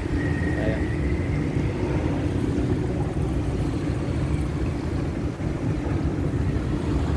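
Steady low engine rumble with a constant hum, unbroken throughout.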